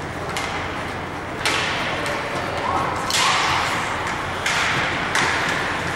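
Ice hockey play on the rink: four sharp scrapes and hits from skates, sticks and puck, roughly a second apart, each trailing off in a short hiss, over a steady arena hum.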